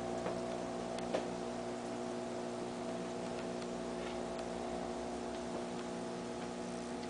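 Steady hum of an aquarium air pump driving a bubble wall, over a faint hiss, with a few soft ticks, the clearest about a second in.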